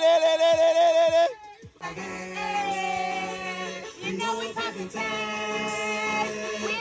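Music with singing: a long held, wavering vocal note over a beat, a short break about a second and a half in, then a steady bass line under more singing.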